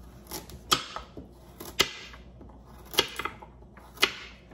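Kitchen knife slicing a carrot into rounds on a bamboo cutting board: a sharp chop of the blade striking the board about once a second, with a few lighter taps between.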